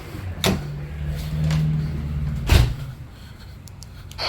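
Thumps of someone climbing stairs, two loud ones about two seconds apart, with a low steady hum between them.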